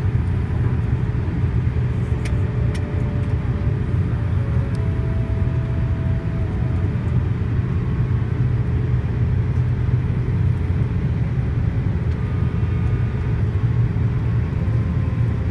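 Steady low rumble inside the cabin of a Boeing 787-8 airliner in flight, with no breaks or sudden sounds.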